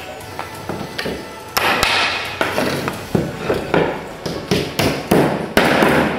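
Claw hammer striking nails through overlapping wooden boards, the nails serving as hinge pins. There are a few light taps, then from about a second and a half in a run of sharp, irregular blows, several to the second at times.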